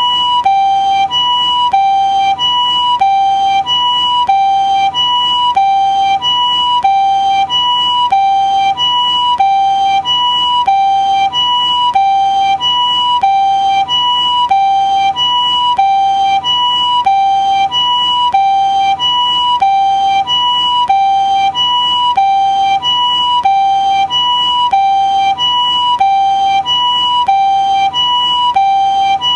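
Japanese ambulance siren sounding its two-tone "pee-poh" call: a higher and a lower tone alternating steadily and evenly, about one high-low cycle every second and a quarter.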